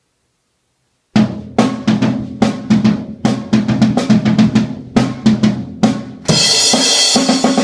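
Drum kit played: a fill of tom and snare strokes, about four a second, starting a second in. Near the end, cymbals crash and ring on in a bright, sustained wash while the drum hits carry on.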